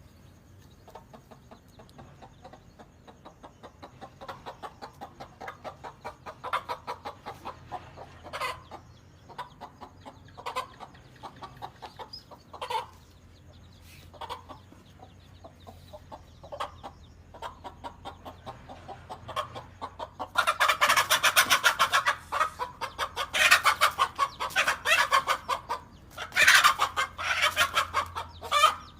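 Hen clucking in quick runs of short calls that grow louder, then from about twenty seconds in much louder rapid squawking in long runs: a mother hen's alarm at a king cobra threatening her chicks.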